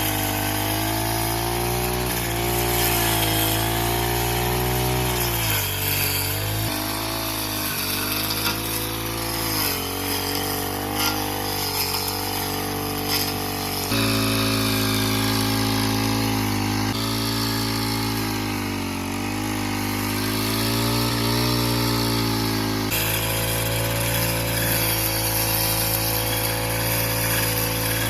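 Brush cutter (grass cutter) fitted with a saw blade, running under load while cutting. Its engine note dips several times as the blade bites, then picks back up.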